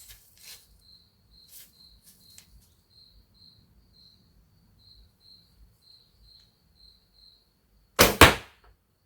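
Laminated Asiatic horse bow shot with a thumb release: one sharp double snap of the string and arrow about eight seconds in. Crickets chirp steadily in a faint, even rhythm before it.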